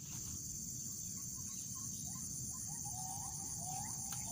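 Steady high-pitched insect drone with a fast pulsing edge, over a low outdoor rumble. About a second and a half in, a run of faint short chirping calls starts and repeats toward the end.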